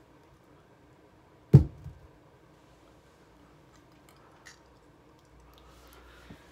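A single loud thump about a second and a half in, with a softer knock just after, then a few faint clicks against quiet room tone.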